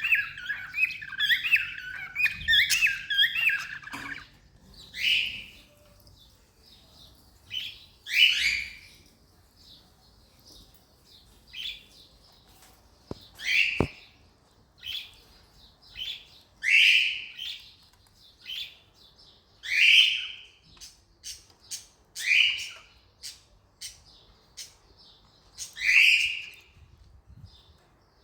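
Cockatiels chirping: a rapid warbling run of chirps for the first few seconds, then single short, sharp chirps every second or two. One knock about halfway through.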